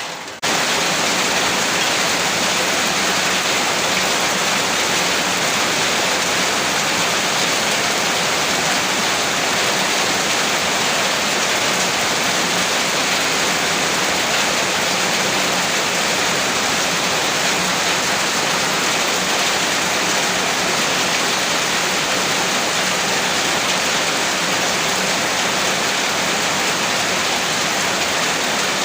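Heavy rain falling as a dense, steady hiss with no separate drops standing out. It cuts in abruptly at full loudness about half a second in.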